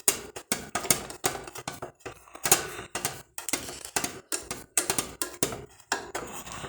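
Rapid, irregular metallic clicks and taps, several a second, from the air-intake damper of a Kholmov solid-fuel boiler and the balance weight being unscrewed from it.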